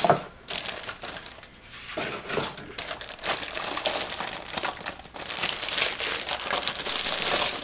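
Plastic packaging crinkling as it is handled and pulled apart during unpacking. It is fainter at first and becomes louder and busier from about three seconds in.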